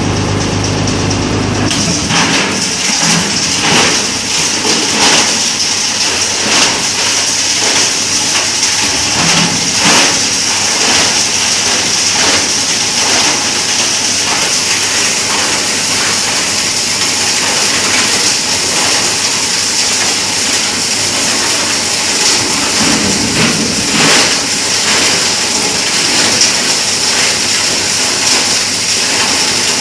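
Plastic grinder crusher chewing up a 20-litre plastic jar. About two seconds in, a low motor hum gives way to loud, steady grinding with irregular cracks and knocks of plastic being chopped.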